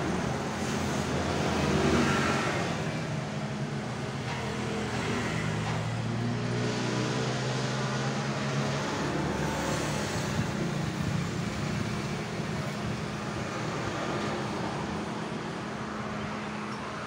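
A motor vehicle engine running amid road traffic noise, its hum drifting a little in pitch.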